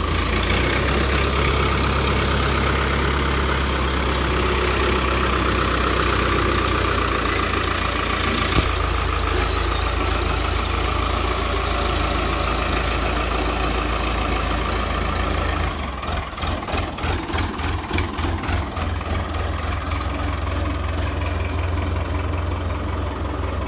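Diesel tractor engines running steadily at close range. About two-thirds of the way through, the sound turns to a rapid, uneven throbbing.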